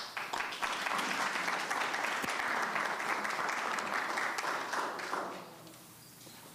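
Audience applauding for about five seconds, then dying away.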